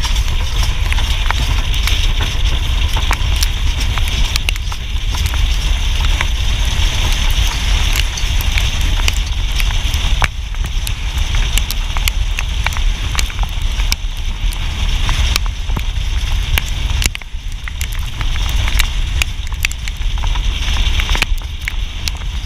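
Wind buffets the microphone of a camera riding on a racing chuckwagon. Under it runs a steady rumble from the wagon and its four-horse team on the dirt track, with many scattered sharp clicks and crackles.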